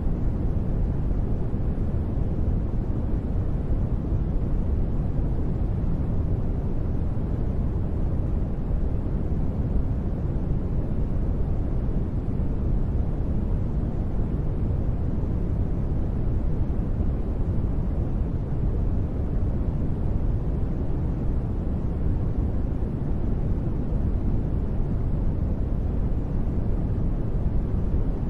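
Steady sleep-aid white noise, deep in tone, with its energy weighted toward the low pitches and little above the midrange. It runs evenly with no changes or sudden sounds.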